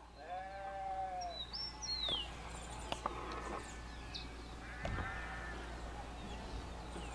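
Birds chirping, with short falling whistles, while a farm animal bleats three times in drawn-out calls.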